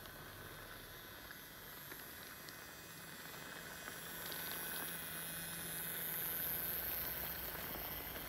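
Small battery-powered electric motor of an Imaginarium Express wooden Shinkansen N700 toy train whirring steadily as the train runs along plastic track, with a few light clicks from the wheels. It gets louder about four seconds in as the train passes close.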